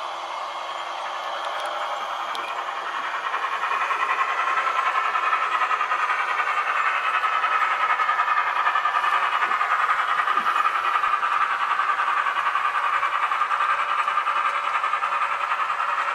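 H0e narrow-gauge model train running along the layout track: a steady whirring rattle of motor and wheels that grows louder over the first four seconds, then holds steady.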